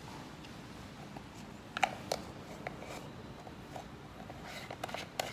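Scattered light clicks and rustles of hands handling parts on top of a solder paste mixer that is switched off, with a few sharper clicks about two seconds in and again near the end.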